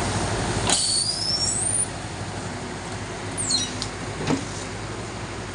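Heavy loading machine's engine running steadily. It is louder for the first couple of seconds, with high rising squeals around a second in, and a single knock about four seconds in.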